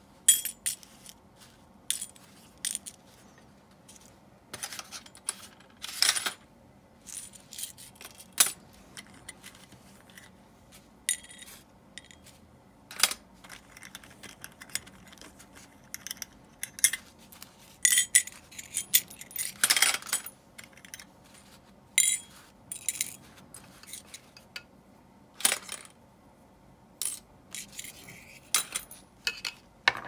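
Small metal reel parts and tools clicking and clinking against each other and a work surface, in irregular sharp taps with a busier stretch of rattling about two-thirds of the way through, as an Abu Garcia Ambassadeur 1500C baitcasting reel is taken apart and worked on.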